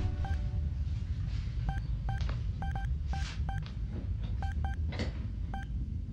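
Short electronic beeps from a control panel being worked, about a dozen at irregular intervals, over a steady low rumbling drone. A couple of soft hissing swishes come partway through.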